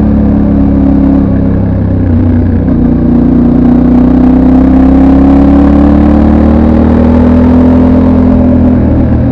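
Yamaha Ténéré 700 World Raid's 689 cc parallel-twin engine, on its stock exhaust, running under way. The pitch dips briefly about two seconds in, then climbs slowly as the bike accelerates through the gear, and eases off near the end.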